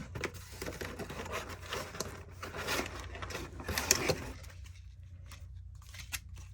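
Rustling and handling of 3D printer filament spool packaging, with many small clicks and knocks, dying down after about four and a half seconds to a few faint taps.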